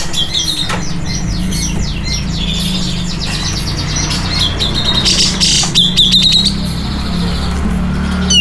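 Cucak jenggot (grey-cheeked bulbul) singing a rapid, chattering run of short chirps and quick down-slurred whistled notes, busiest about five to six seconds in, over a steady low hum.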